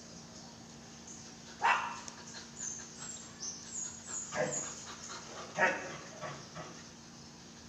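Belgian Malinois barking in a string of short barks. The loudest comes about two seconds in and another strong one about five and a half seconds in.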